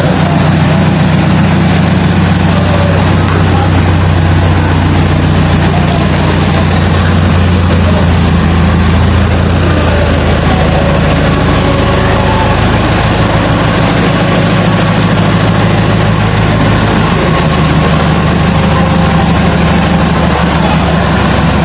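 Massey Ferguson tractor's diesel engine running steadily at low revs, its note shifting slightly late on.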